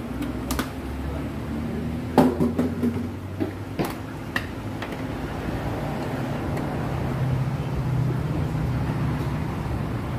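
Plastic engine-oil bottles being handled and uncapped, giving a few sharp clicks and knocks, the loudest about two seconds in. A steady low hum runs underneath.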